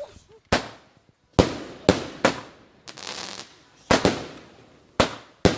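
Fireworks going off: about eight sharp bangs at uneven intervals, some in quick pairs, each trailing off briefly.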